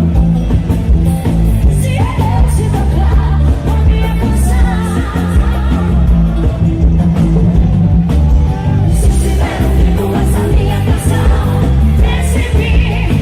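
Brazilian calypso band music: a driving bass beat with sung vocals and the odd shout.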